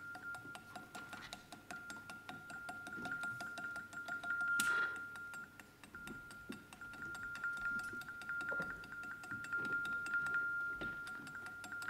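Experimental ensemble performance sounds: a steady high electronic-sounding tone over a fast, even ticking, with small clicks and clinks from objects being handled close to a microphone. A sharp, louder crack or clash comes about five seconds in.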